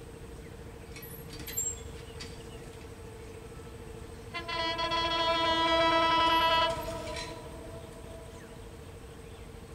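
Horn of an approaching EMD GT42 diesel locomotive sounding one long blast of about two and a half seconds, starting a bit after four seconds in.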